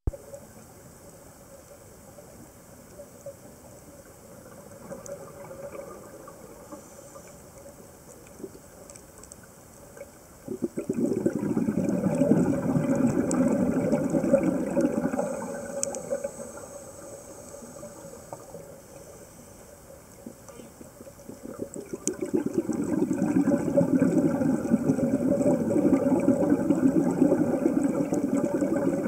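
Scuba diver's exhaled bubbles rushing and burbling from the regulator, heard underwater: two long spells, about ten seconds in and again from about 22 seconds, with quieter stretches between them. A faint steady hum runs underneath throughout.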